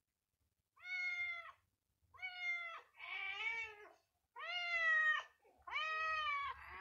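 Cat meowing over and over: five drawn-out meows about a second apart, the middle one rougher than the rest.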